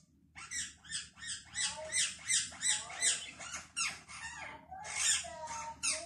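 Parrot calling in a quick run of short, high squawks, about three a second, starting about half a second in.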